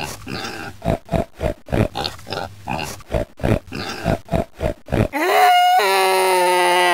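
Cartoon sound effects: short grunts about three a second, then about five seconds in a loud, long, steady pitched cry.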